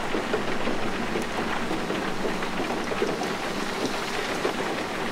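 Steady rain falling, a dense even hiss with the patter of separate drops.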